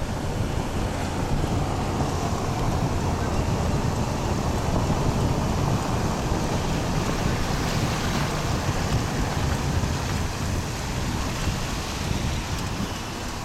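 Wind buffeting the microphone: a steady, rushing noise that is heaviest in the low end.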